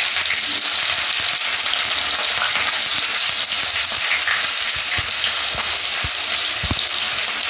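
Chopped onion sizzling loudly as it fries with bay leaves in hot refined vegetable oil: a steady, dense hiss. A few low knocks come near the end as the onion is stirred.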